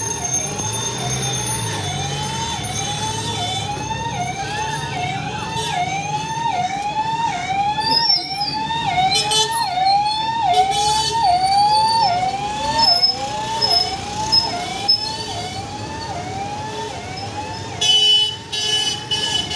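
A siren-like electronic tone repeats steadily: each time it rises in pitch and snaps back down, roughly twice a second, over a low hum of street noise.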